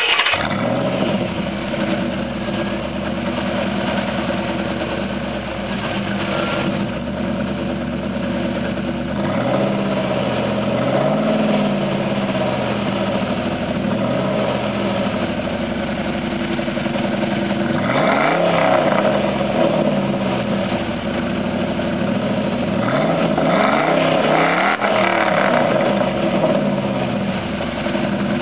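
Ford F-150 pickup's engine idling through a new dual-tip side-exit exhaust, with the throttle blipped several times. There are a few light revs partway through, then a sharper rev past the middle and two more revs near the end.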